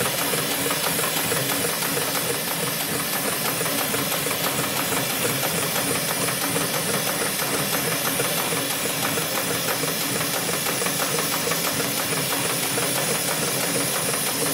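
Hightex automatic spiral sewing machine running steadily, its needle stitching spiral rows through a thick stack of cotton buffing-wheel cloth with a rapid, even stitching rhythm.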